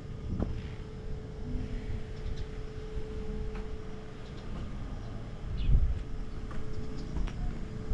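Honda Dio Fit 50cc two-stroke scooter engine running, a steady low rumble with a louder swell about six seconds in; the running check turns up no abnormal noise.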